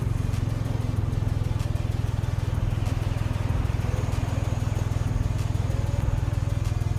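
Engine of a small off-road vehicle running steadily at low revs, with an even pulsing drone and no revving up or down.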